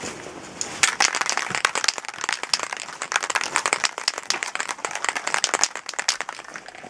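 Aerosol spray paint can being shaken, its mixing ball rattling in quick, sharp clicks from about a second in until near the end, mixing the paint before spraying.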